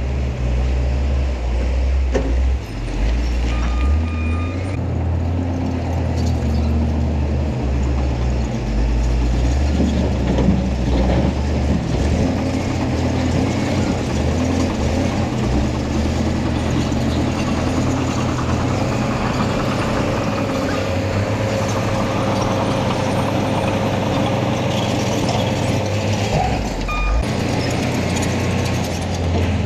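Diesel earthmoving machinery running and working, a heavy low engine rumble that rises and falls with the load.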